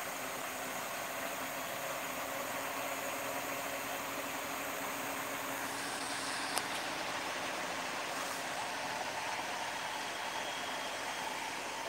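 Truck crane's engine idling steadily, with one sharp click about six and a half seconds in.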